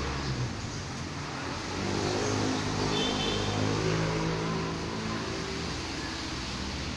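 A motor vehicle engine running, steady in pitch, getting louder about two seconds in and fading again about two seconds before the end.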